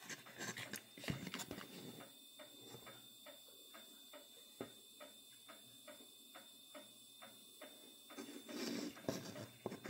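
Faint, regular ticking, about three ticks a second, that stops about eight seconds in, followed by a soft rustle of handling near the end.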